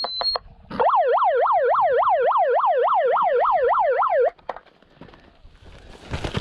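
Electronic siren sounding in fast up-and-down sweeps, about four a second, for roughly three and a half seconds, after a few short high beeps. It is the start signal for the round, right after a spoken countdown.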